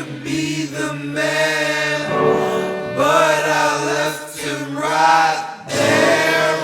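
Song passage of long, held sung notes in a chant- or choir-like style over a steady low held note, with two short breaks.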